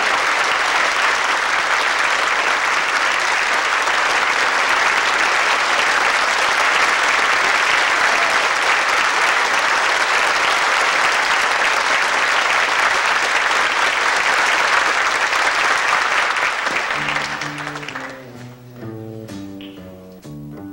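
A theatre audience applauding steadily for about seventeen seconds. The applause then dies away as a plucked double bass starts a line of stepped low notes, with light ticks keeping time above it: the band starting the next song.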